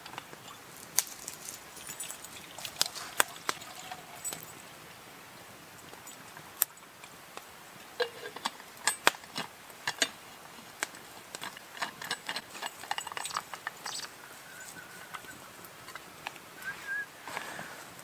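Campfire crackling with scattered sharp pops, mixed with light metallic clinks of a steel flask and cup being handled.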